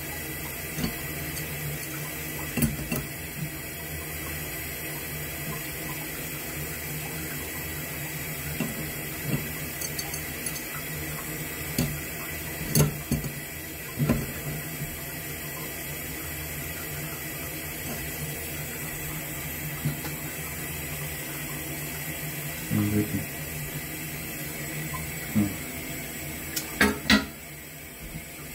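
Steady hiss of running water, with scattered sharp clicks and knocks from hands working the metal fittings of a braided steel toilet supply hose. Several clicks come close together near the end.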